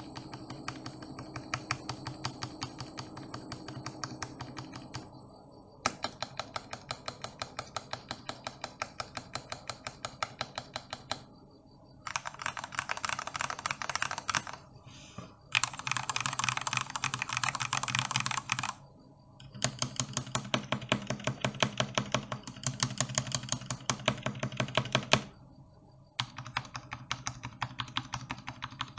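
Typing on a GK61X mechanical keyboard with lubed and filmed Gateron Milky Black linear switches, on a deskmat: a fast, continuous run of keystroke clacks broken by several brief pauses.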